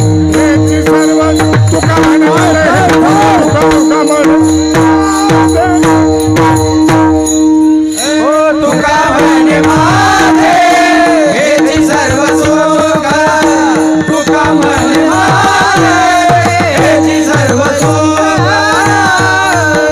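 Varkari kirtan music: a held harmonium-like drone, fast drum strokes and jingling taal hand cymbals, with voices singing a devotional melody over them from about a third of the way in.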